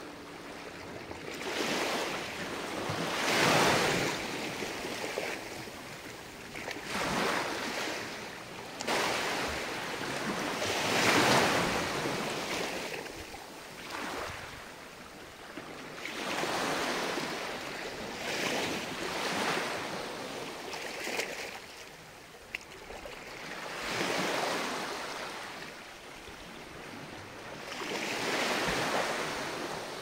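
Small ocean waves washing up onto a sandy beach and drawing back, each wash swelling and fading every four to five seconds.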